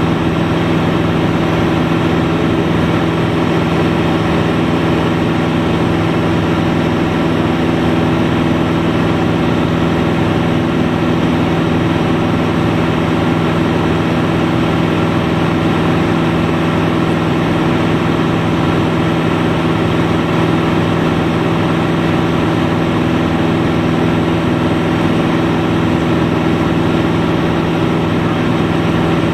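Single-engine light aircraft's engine and propeller droning steadily in level cruise flight, heard from inside the cockpit. The pitch and level hold constant throughout.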